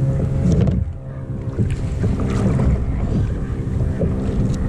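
Strong wind buffeting the microphone over a steady low drone, with water sloshing and splashing against a kayak as a paddle is stroked through choppy sea.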